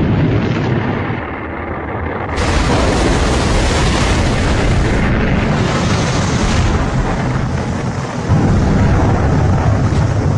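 Loud, continuous rumbling roar of a rocket launch failure: rocket engine exhaust and explosion. It cuts to a differently recorded clip about two seconds in, and there is a fresh surge of rumble near the end.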